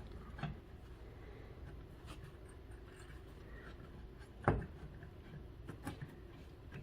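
Faint rubbing and handling of wall-sconce parts being fitted by hand onto the wall mount, with a few small ticks and one sharp click about four and a half seconds in.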